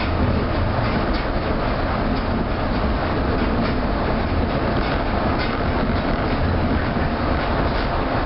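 Osaka New Tram rubber-tyred automated guideway train running at speed along its concrete guideway, heard from inside the front car: a steady rolling rumble with faint, irregular clicks.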